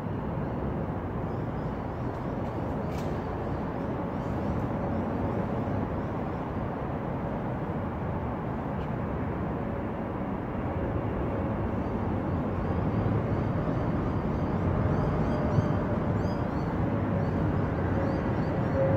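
A steady rumbling noise with a faint held hum, slowly growing louder in the second half.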